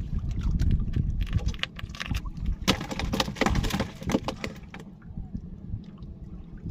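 Irregular clattering knocks and scrapes of handling in a small fishing boat, busiest about three to four seconds in, over a steady low rumble of wind on the microphone.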